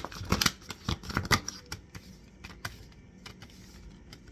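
A deck of tarot cards being shuffled by hand: a quick run of sharp card slaps and clicks for about a second and a half, then a few soft scattered ticks.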